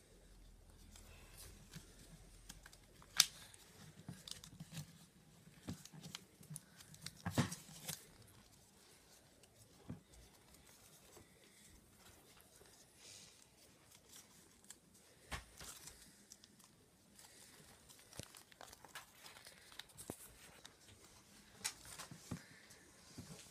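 Origami paper rustling and crinkling as a paper crane is folded and handled, with scattered sharp crackles, the loudest about three seconds in.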